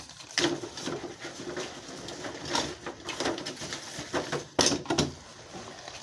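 Dolls being handled and gathered together, with irregular small clicks and knocks.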